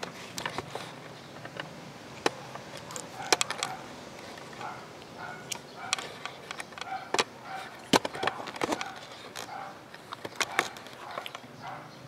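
Handling noise: scattered light clicks, taps and knocks of plastic parts and a hand-held camera being moved about, with sharper knocks about three seconds and eight seconds in.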